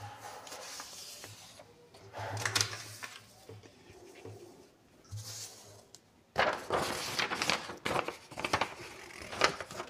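Sheets of paper being handled and turned over: soft rustling in the first half, then a denser run of crisp paper crackles and taps as the sheets are laid flat, starting about six seconds in.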